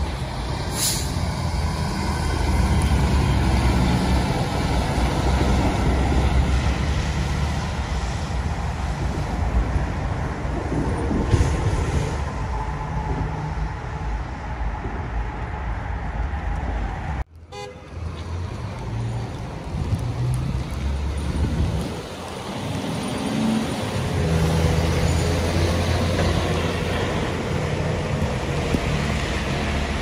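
Heavy emergency-vehicle traffic on the street: a steady low engine rumble of trucks going by, broken by a sudden dropout about seventeen seconds in.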